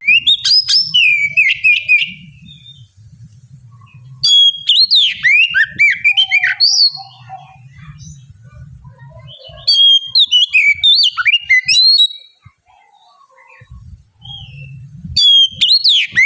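Oriental magpie-robin (kacer) singing loud bursts of rapid, varied whistles and chirps. There are four phrases separated by short pauses.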